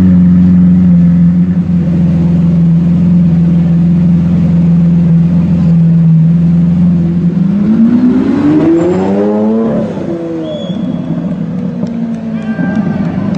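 Lamborghini Aventador V12 running steadily at low revs, then about seven seconds in revving up in a steep rising climb as the car pulls away. The revs drop off abruptly about ten seconds in, and the engine climbs again briefly near the end.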